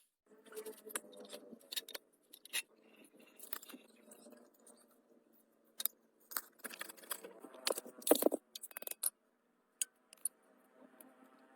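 Scattered small clicks, taps and scrapes of hands working on the dynamo's metal parts, with a brief cluster of louder knocks about eight seconds in.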